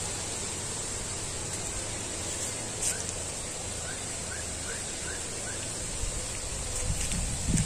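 Steady outdoor hiss of wind in the waterside trees, with a small bird giving about five short rising chirps in the middle. A low rumble on the microphone builds near the end.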